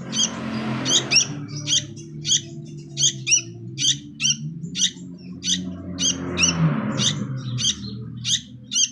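Juvenile sooty-headed bulbul (kutilang) calling loudly and insistently: short, sharp, high notes repeated about twice a second. Underneath is a low background rumble, and there are two brief rushing noises.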